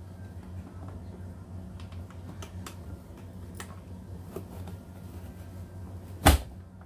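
Plastic clicks and rattles from a Mueller vegetable chopper being handled and fitted together, then one loud clack about six seconds in as its lid is pressed down through the chopping grid. A low steady hum sits underneath.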